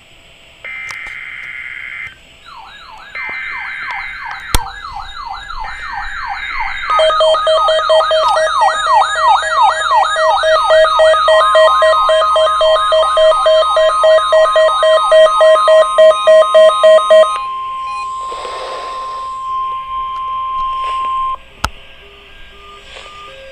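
NOAA Weather Radio test alert: three short data bursts of screeching tone, then the steady single-pitch warning alarm tone of about 1 kHz held for some ten seconds. Alarms from weather alert receivers triggered by the test sound over it: a warbling siren and a rapid pulsing beep that stop about three-quarters of the way through.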